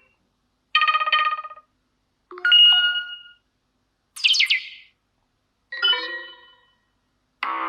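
Four short preset alert tones from a CUBOT X20 Pro smartphone, played one after another with about a second of silence between them; the third is higher and brighter than the rest. A fifth, longer tone starts just before the end.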